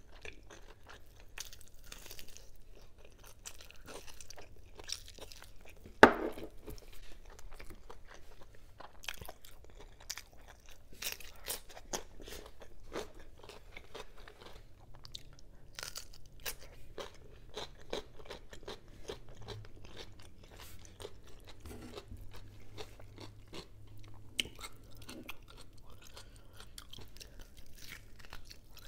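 Close-up mouth sounds of someone eating braised adobo pork and chicken off the bone with her hands: wet chewing, biting and crunching. One sharp, much louder knock comes about six seconds in.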